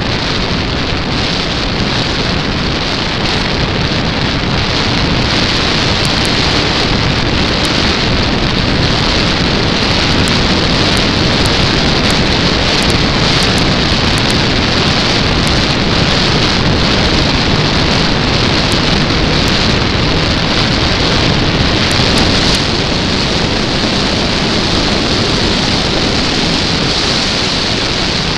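A loud, steady rush of wind over the microphone of a small camera mounted on a radio-controlled model Cessna Corvalis in flight, with the noise of its spinning propeller mixed in.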